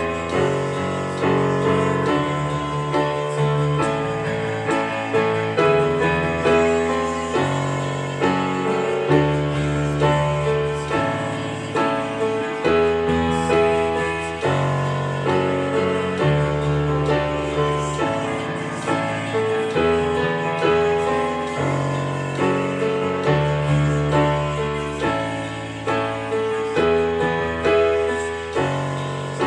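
Digital piano played solo: a worship song's chords struck in a steady pulse, about two a second, over low bass notes that change every second or two.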